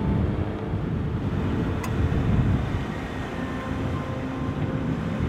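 Mk1 Ford Focus 1.8's four-cylinder engine running at low revs as the car reverses slowly across a car park, giving a steady low hum.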